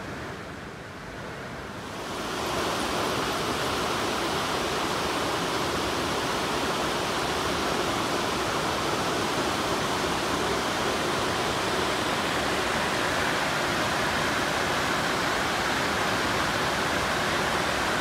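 Water pouring over a low concrete weir on a small river: a steady rushing. It gets louder about two seconds in, after a softer stretch.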